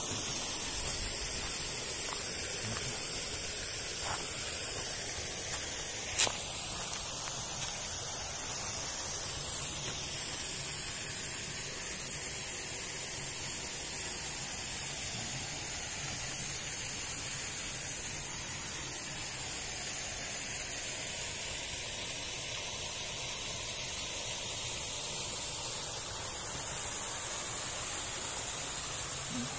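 Steady rushing of falling water from a waterfall, with a few small clicks between about four and six seconds in.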